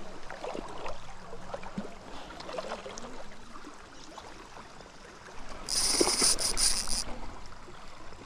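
River water running steadily. About five and a half seconds in, a fishing reel's drag buzzes for about a second and a half as a fish takes line.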